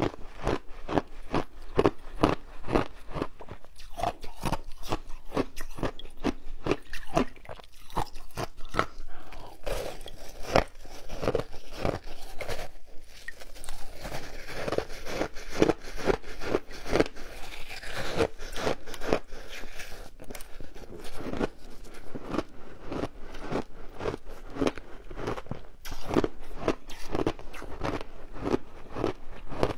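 Close-miked crunching and chewing of a block of frozen shaved ice in the mouth: a quick, steady run of crisp crunches, about three a second.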